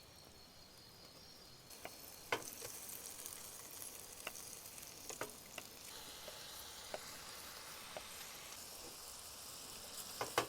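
Garlic frying in butter in a pan, sizzling steadily from about two seconds in, with a utensil clicking against the pan every second or so as it is stirred.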